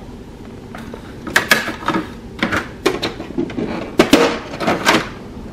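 Plastic front door and cartridge access door of an HP DeskJet Plus 4100 printer being opened by hand: a run of sharp plastic clicks and knocks, loudest about four seconds in.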